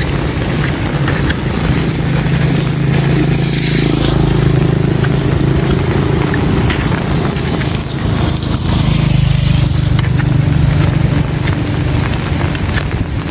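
Heavy rain pouring down, with wind buffeting the phone's microphone. A steady low drone sits underneath for most of the stretch, dropping away briefly around the middle.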